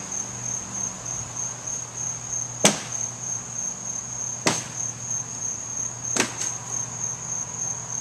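Three sharp blows of a hand tool into the wood of the split tree trunk, spaced about two seconds apart, the first the loudest, over a steady high chirring of insects.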